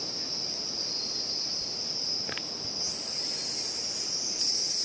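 Steady, high-pitched chorus of insects shrilling, growing fuller about three seconds in, over an even low hiss. A brief click a little over two seconds in.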